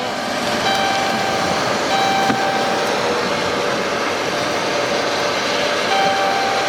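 Steady rushing wind noise on the microphone, with a faint held tone with a few overtones breaking in and out several times.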